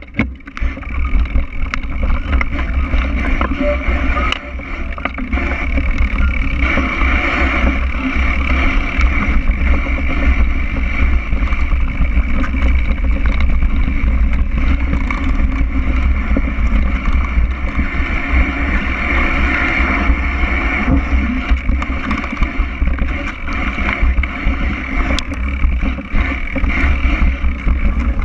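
Mountain bike rolling downhill over grass, heard from a bike-mounted action camera: a steady rush of wind rumble on the microphone with the rattle and rolling noise of the knobby tyres and bike.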